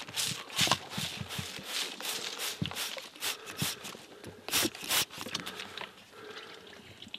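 Footsteps through brush and leaf litter on a forest floor, with twigs and undergrowth crackling, about two or three steps a second, thinning out near the end.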